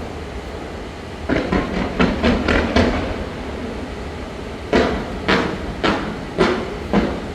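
Aerial fireworks bursting: a quick run of about six bangs, then after a pause a regular string of five bangs about half a second apart, over a steady low rumble.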